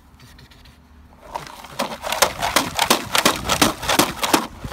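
Rapid, irregular crackling and clicking that starts about a second in and keeps going loud, from Belgian Malinois puppies playing and tussling over a rag toy.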